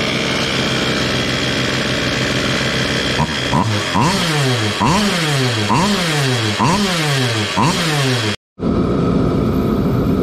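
Small two-stroke engine of a mini Goped bike idling steadily, then blipped about six times, roughly once a second, each rev rising sharply and falling back. It cuts off abruptly and is followed by the steady hum of a forced-air torpedo heater running.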